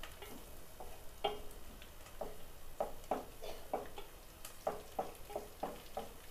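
A spatula scraping and stirring through a tadka of onion, dried red chillies, garlic and cumin frying in ghee in an aluminium pot. Quick repeated scrapes, nearly three a second, over a faint sizzle of the hot ghee.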